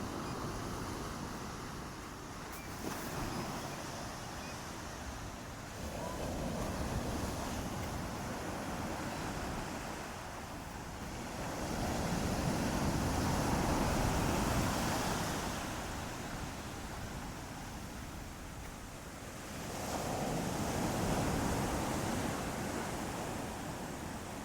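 Ocean waves breaking and washing in, the surf swelling louder three times, roughly every six to eight seconds, over a steady low rumble.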